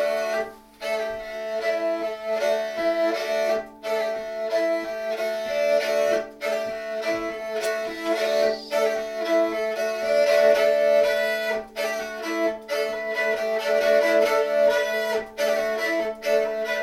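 Jouhikko, the Karelian bowed lyre with horsehair strings, playing a traditional Karelian folk tune: a melody bowed over a steady drone, with a few brief breaks.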